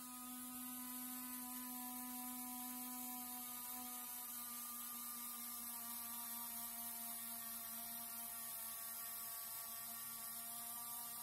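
Electric retract unit's motor and reduction gearbox whining steadily as it slowly swings a scale jet-model landing gear leg up from down to retracted.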